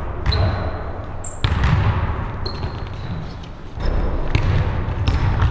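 A basketball bouncing on a hardwood court in a large sports hall, with knocks of the ball and players' feet and short high sneaker squeaks, all echoing.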